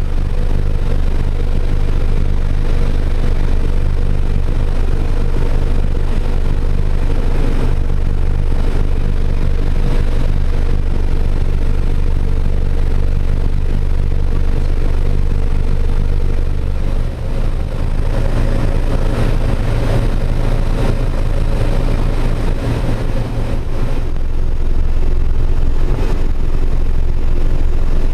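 Pilatus PC-6 Porter's turboprop engine and propeller droning steadily, heard from inside the cabin. About two-thirds of the way in, the low drone shifts in pitch after a brief dip in level, and it shifts back near the end.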